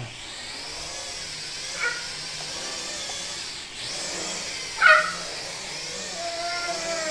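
TXD 8S toy quadcopter's four small motors and propellers whining in flight, the pitch wavering up and down as the throttle is worked by hand, since the drone has no altitude hold. Short squeaks come about two and five seconds in, the second the loudest.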